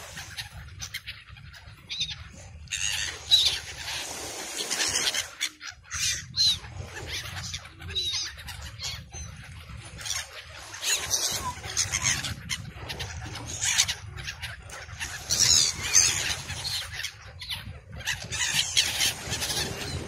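A flock of gulls calling over and over in short, sharp squeals as they crowd in to be fed, the loudest calls at about three seconds and near sixteen seconds, over a steady low rumble.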